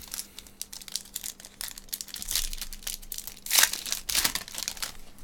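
Foil trading-card pack wrapper being torn open and crinkled by hand, an irregular crackling with its loudest rip about three and a half seconds in.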